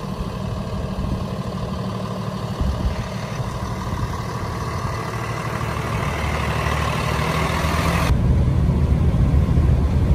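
Diesel engine of a Freightliner M2 SportChassis truck running as it pulls away towing a fifth-wheel camper, growing louder as it comes past. About eight seconds in, the sound cuts abruptly to a louder, steady drone of the truck cruising on the highway.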